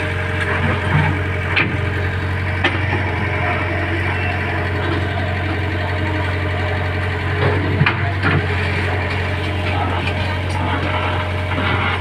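Heavy diesel engine of road-construction machinery running steadily with a deep hum, with a few short knocks or clanks over it.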